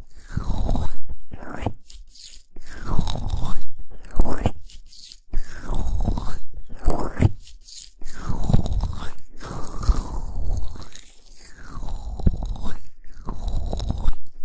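Hands rubbing and cupping over the ears of a binaural microphone, a mimed ear massage heard right at the capsules. The strokes come in repeated swells every second or two, each with a deep rumble and a rustling sweep.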